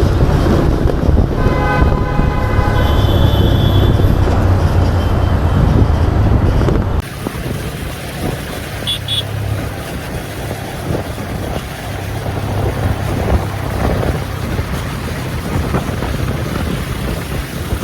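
Motorcycle riding noise picked up by an action camera's built-in microphone: steady engine and wind rumble, with a vehicle horn sounding for about two seconds early on. About seven seconds in the sound drops suddenly to a quieter rumble, and a short double beep follows a couple of seconds later.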